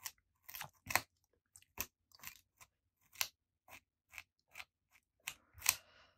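Rubber cement pickup rubbing dried masking fluid off watercolor paper: short scratchy strokes at an irregular pace, roughly two a second.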